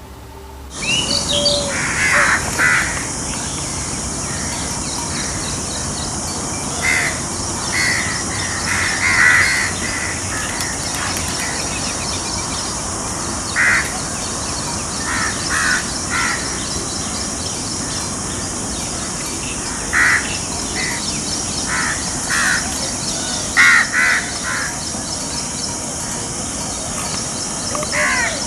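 A bird calling in short harsh notes, singly or in quick groups of two or three, repeated every few seconds over a steady high-pitched hiss.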